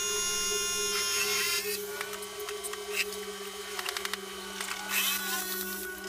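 Light knocks and clatter of plywood panels being handled on a wooden coffin box, over a steady low machine hum. Music is heard for the first second and a half.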